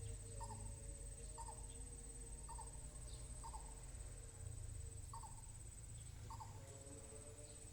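Female coucal giving its mating call: a short note repeated about once a second, six times, over a steady high-pitched insect drone.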